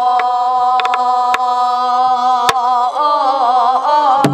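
A woman singing one long held note in Namdo folk style, steady at first and then shaking in a wide vibrato from about three seconds in. A buk barrel drum is struck with a stick along with it: a few sharp clicks and a deeper drum stroke near the end.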